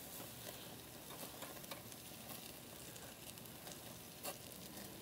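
Salmon fillets sizzling faintly on a small charcoal grill, with scattered light crackles and a brief tap about four seconds in.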